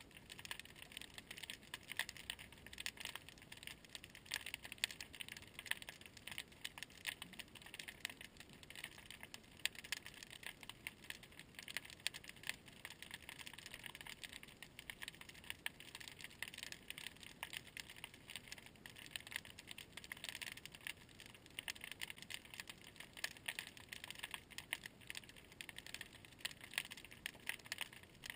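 Dense, irregular crackle of countless tiny clicks, the ambient sound of the water picked up by an underwater camera.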